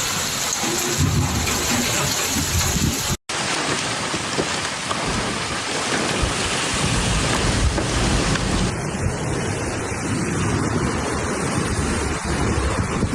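Heavy rain pouring steadily, with thunder rumbling low underneath. The sound cuts out for an instant about three seconds in and changes character near the nine-second mark, as one piece of footage gives way to another.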